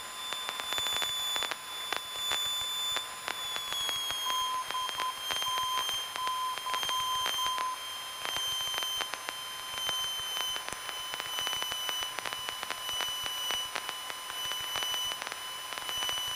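Cabin noise of a Piper PA-28 light aircraft in flight: the piston engine and airflow, heard through a GoPro as a steady high whine with irregular clicks. The whine drops in pitch about four seconds in and then holds steady.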